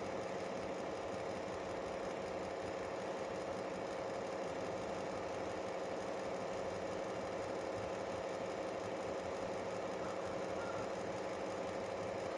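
Steady hum of a running motor, even in pitch and level throughout.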